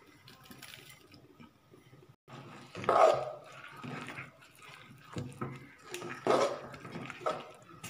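A dog barking a few times in short separate barks, loudest about three seconds in and again about six seconds in.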